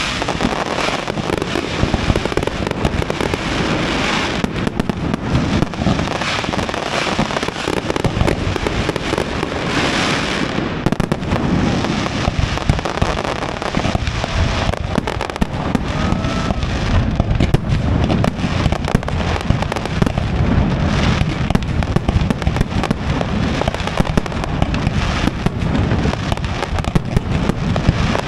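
Aerial fireworks display: a dense, unbroken barrage of bangs and crackling bursts that never pauses.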